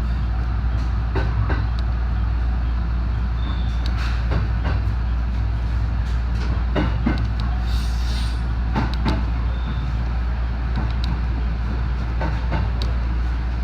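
JR West 207 series electric train running, heard from on board: a steady low rumble with pairs of clicks every few seconds as the wheels pass over rail joints.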